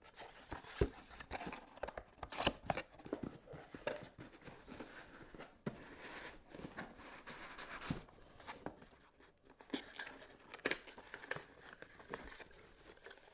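Unpacking handling noise: small cardboard accessory boxes and a power adapter lifted out of dense foam packing and set down, giving scattered soft taps, scrapes and rustles.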